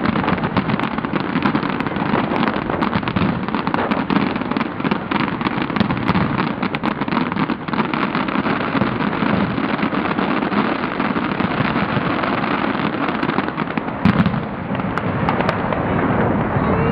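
Fireworks going off in a dense barrage: continuous crackling and popping from many shells at once, with one louder bang near the end.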